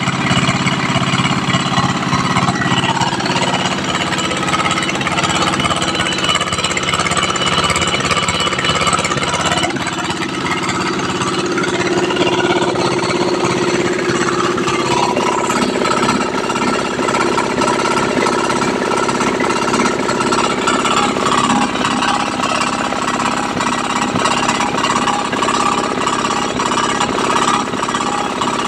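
Low-speed air-cooled diesel engine running steadily, with a fast even beat of firing strokes; its note dips and shifts slightly about ten seconds in, then holds steady.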